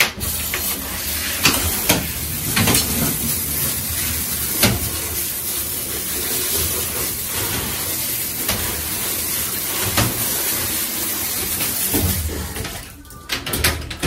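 Handheld shower head spraying water against tiled bathroom walls and a tub, a steady hiss of spray that stops about a second before the end. The walls are being rinsed of mould remover.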